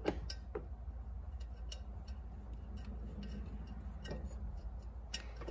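A few light, scattered metallic clicks and taps from a nut being worked by hand onto an intake-horn mounting stud, the sharpest click right at the start, over a steady low hum.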